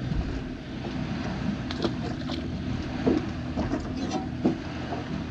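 A steady low motor hum, with several short, sharp clicks scattered through it.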